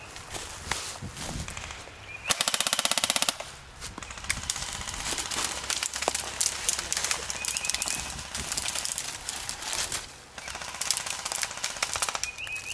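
Airsoft rifle firing a rapid full-auto burst of about a second, close by, starting about two seconds in. Scattered shorter rattles and clicks of airsoft fire continue around it.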